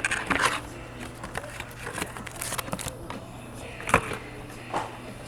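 Trading-card pack being opened and the cards handled: a crinkling rustle of the wrapper and cards at the start, then quieter shuffling with a couple of sharp clicks near the end.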